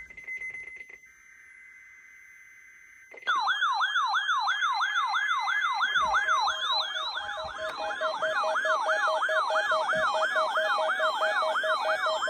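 The tail of a SAME digital header, short rapid data bursts, then about three seconds in a loud electronic alert siren starts, sweeping up and down about three times a second. It signals an incoming Emergency Alert System / NOAA Weather Radio required weekly test.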